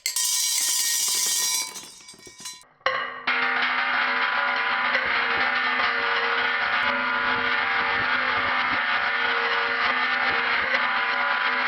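Marbles rolling and rattling along a toy marble-run track. A bright rolling sound stops about two seconds in. After a short lull, a dense, steady clatter of many small ticks over a ringing hum starts about three seconds in and holds to near the end.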